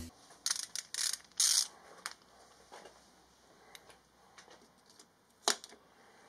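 Socket ratchet on a long extension working at a bolt: a scatter of short metal clicks and rattles, a cluster in the first two seconds and the sharpest click about five and a half seconds in.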